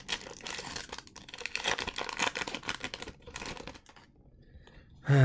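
Foil booster-pack wrapper of Magic: The Gathering cards crinkling and tearing as it is worked open by hand, a busy crackle that dies down a little before the end; right at the very end a loud voice starts.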